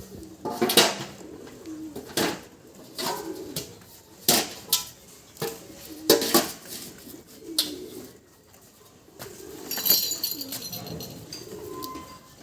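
Pigeons cooing, a low rolling warble, with scattered sharp knocks and clatter throughout.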